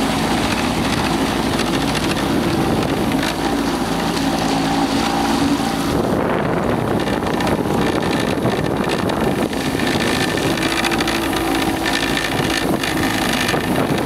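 A small fishing boat's outboard motor running steadily under way, with water rushing past the hull and wind buffeting the microphone.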